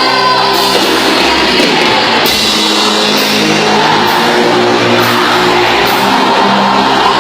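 Christian rock band playing loudly, with drum kit and guitars driving a steady beat.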